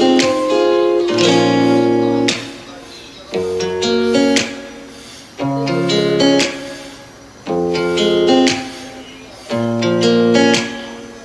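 Background music: acoustic guitar strumming chords in phrases that swell and fade about every two seconds.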